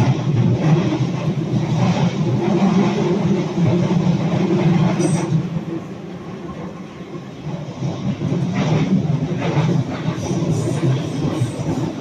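London Underground Jubilee line 1996 Stock train running at speed, heard from inside the carriage: a steady low rumble of wheels on rail and traction equipment. It drops in loudness for a couple of seconds about halfway through, and a few knocks from the track come about two-thirds through.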